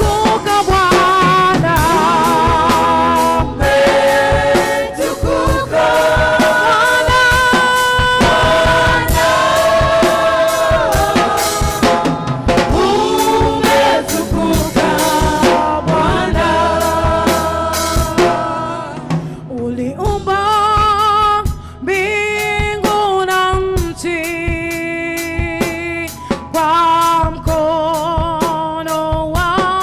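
Gospel worship music: a choir singing with a drum kit and band, the singing held on long notes with vibrato. The drums drop back about two thirds of the way through while the voices carry on.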